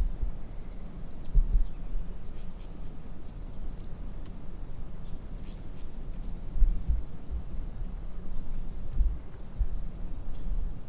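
A small bird repeating a short, high chirp about every one to two seconds, over an uneven low rumble with a few dull thuds.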